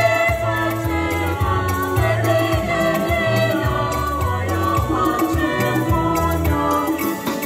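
A small group of young voices singing a praise song in harmony, accompanied by a Yamaha PSR-SX700 arranger keyboard playing chords over a bass line.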